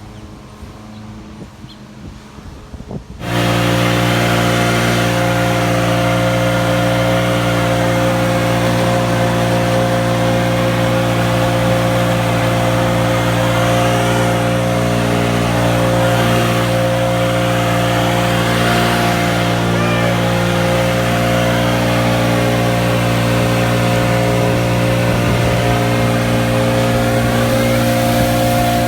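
A small petrol engine starts sounding suddenly about three seconds in and runs loud and steady at a constant high speed, with an unchanging pitch, then begins to wind down right at the end.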